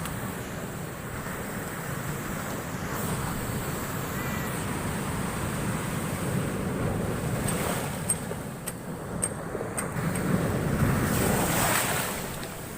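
Heavy storm surf breaking and rushing ashore, with wind buffeting the microphone. The wash swells, loudest near the end, and a few sharp clicks sound about two-thirds of the way through.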